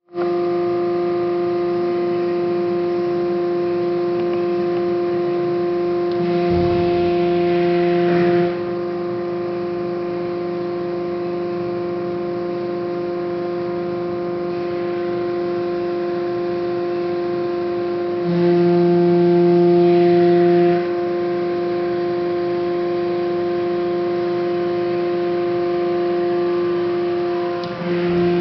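Hydraulic pump and motor of a Haco 400-ton CNC press brake running with a steady hum. Twice, about six seconds in and about eighteen seconds in, it gets louder, with an added hiss, for two to three seconds.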